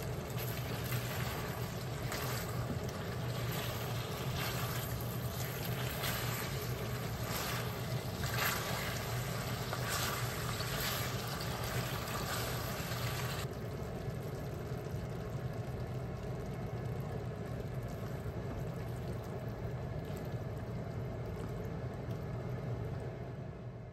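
Thickened sauce bubbling and sizzling in a carbon-steel wok over medium-high heat, with a spatula scraping and stirring through it, over a steady low hum. About halfway through the scraping and crackle drop away, leaving a quieter steady simmer.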